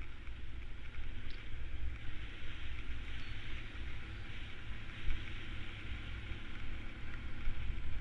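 Motorcycle running along at an even pace: a low engine rumble under a steady rush of wind noise.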